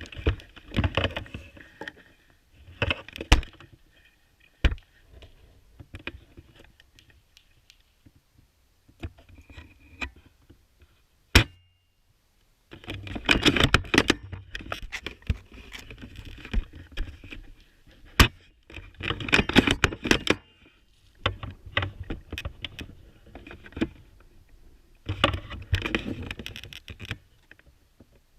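Irregular bursts of rustling and rattling, each about a second long, broken by a few single sharp clicks.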